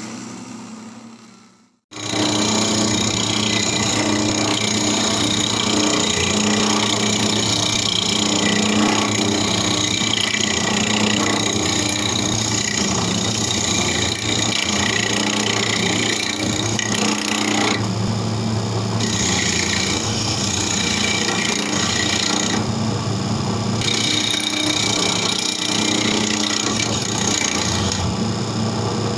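Electric tabletop cassava and coconut grinder running: a steady motor hum under a loud, dense grinding rasp. It cuts in abruptly about two seconds in after a brief fade to silence, and the high rasp thins out briefly three times.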